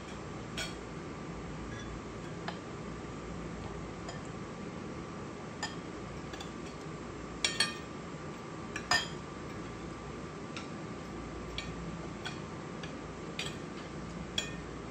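Metal spoons clinking against ceramic bowls and plates as people eat: about ten scattered light clinks, a quick pair about seven and a half seconds in and the loudest about nine seconds in, over a steady low hum.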